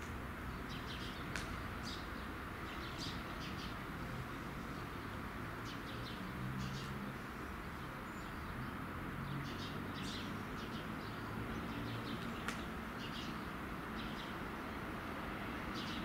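Small birds chirping in short repeated calls over a steady low rumble from a distant approaching electric suburban train, which grows slightly louder near the end.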